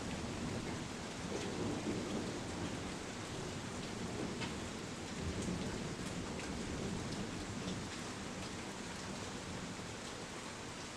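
Steady rain falling, with low thunder rumbling underneath during a thunderstorm. The rumble eases a little toward the end.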